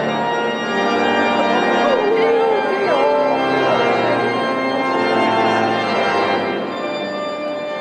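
Church pipe organ playing full, sustained chords as recessional music, easing off in level near the end.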